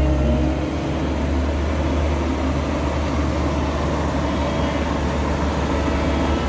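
Heavy diesel construction machinery running steadily with a low, even drone.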